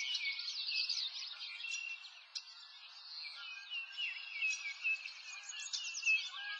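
Many small birds chirping at once, a dense run of quick high chirps and short falling notes that thins out for a moment about two seconds in, then fills in again.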